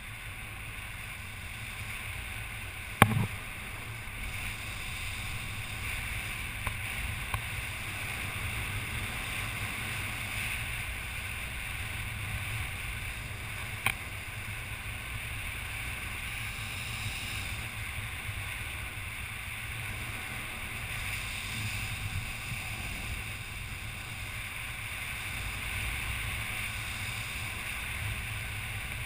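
Wind buffeting the microphone of a head-mounted camera, a steady rumble and hiss. A sharp knock comes about three seconds in and a fainter click near the middle.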